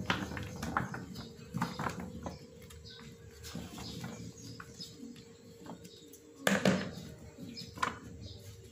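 Raw potato strips tumbling out of a plastic colander onto paper towels and being spread by hand: crinkling paper and a soft clatter of strips in short scattered strokes, loudest about six and a half seconds in.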